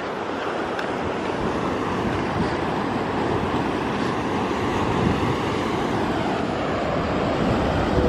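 Ocean surf breaking on a rocky shore, with wind buffeting the microphone: a steady rushing noise that slowly grows louder.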